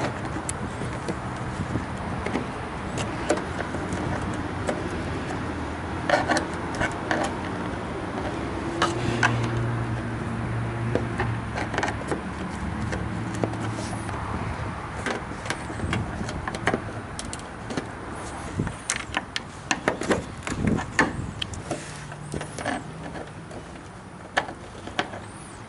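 A flat-blade screwdriver prying plastic push-pin clips out of a truck's plastic radiator cover panel: scattered clicks and snaps of plastic that come thicker in the second half, over a steady low hum.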